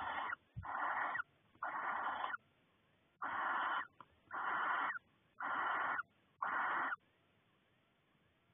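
Barn owl giving a series of seven wheezy hissing 'snore' calls, each about half a second long and roughly one a second, the begging call of barn owls.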